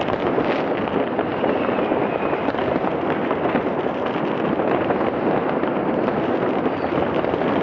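Dense, unbroken crackling of many firecrackers and fireworks going off at once all around, blending into a steady din of overlapping bangs with no single blast standing out.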